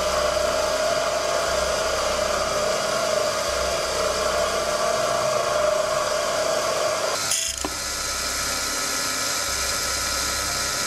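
Proxxon PD 250/e mini lathe turning a silver steel bar with an insert tool: steady motor and spindle noise with a held cutting tone. About seven seconds in the sound changes abruptly and the tone stops, leaving steady running noise.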